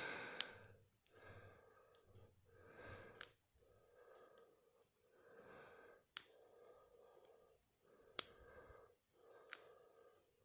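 Metal lock-picking tools clicking in a padlock being picked in hand: five sharp clicks a few seconds apart. Between them, slow steady breathing close to the microphone.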